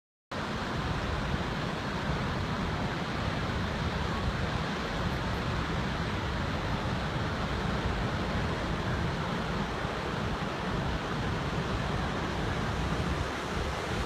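Steady rush of Victoria Falls at low water, pouring into its gorge, with wind buffeting the microphone.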